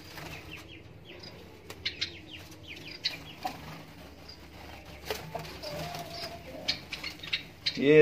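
Small aviary birds, Java sparrows and Bengalese finches, chirping in short scattered high notes, with wings fluttering as birds fly out of the small cage. A few light clicks and knocks come from the wooden-and-wire cage being handled.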